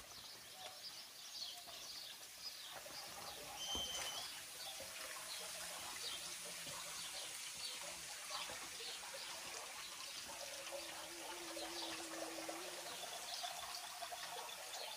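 Small birds chirping repeatedly over the steady trickle of a tiered garden fountain.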